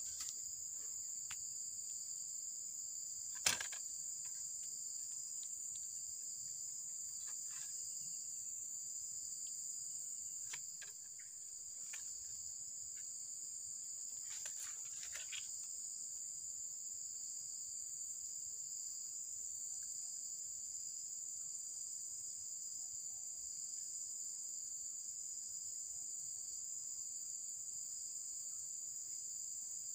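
Steady, high-pitched insect chorus that runs without a break. A single sharp click sounds about three and a half seconds in, with a few faint clicks and rustles around the middle.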